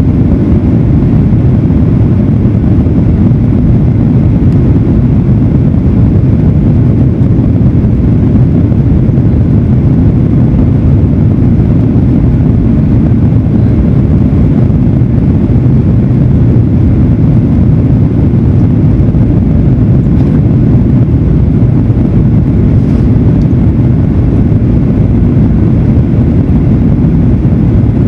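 Steady, loud, low rumble of a Boeing 737-900ER heard from inside the cabin: the CFM56 jet engines and rushing airflow, unchanging throughout.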